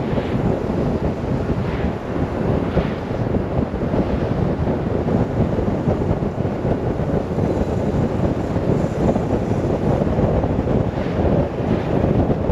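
Steady, loud wind buffeting the microphone of a camera on a moving motorcycle, a dense rumble with little else audible through it.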